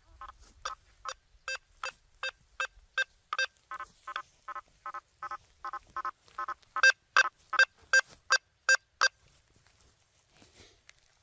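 Quest V80 metal detector giving a rapid string of short, same-pitched audio beeps, about two and a half a second, as its 9-inch coil responds to targets in a nailboard test. The beeps get louder for the last few and stop about nine seconds in.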